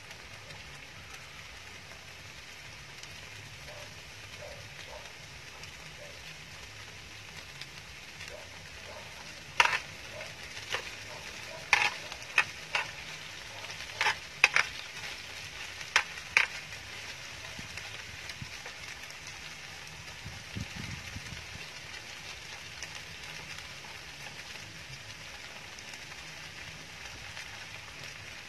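Chicken and rice sizzling steadily in a round grill pan on a portable gas stove. Partway through comes a run of about nine sharp clinks of chopsticks and a metal spoon against the pan.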